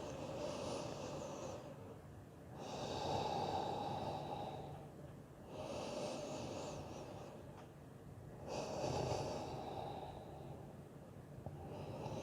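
A person breathing slowly and deeply through the nose, four long audible breaths of two to three seconds each, as in and out breaths held in a seated forward fold.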